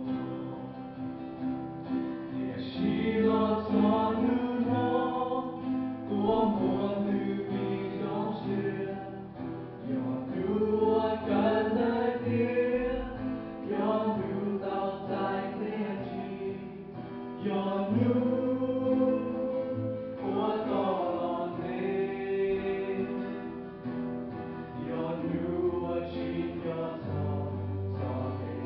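Voices singing a gospel song together, with guitar accompaniment.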